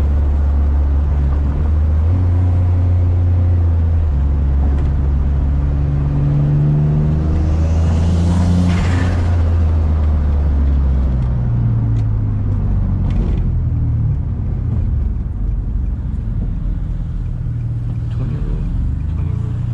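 Single-turbo Nissan G35's 3.5-litre VQ35 V6 heard from inside the cabin, pulling and easing off with its pitch rising and falling several times. A short burst of hiss comes about eight to nine seconds in, and a few light clicks a few seconds later.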